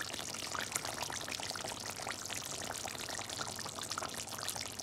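Chicken and bottle gourd curry simmering in a pan, the thick gravy bubbling and sizzling in a steady crackle of many small pops.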